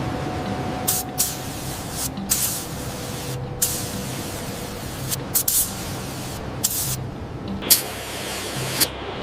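A steady hissing spray sound, cut off and restarting abruptly several times.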